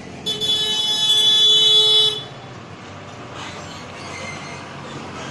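Vehicle horn sounding one long blast of about two seconds, followed by running engine and road noise.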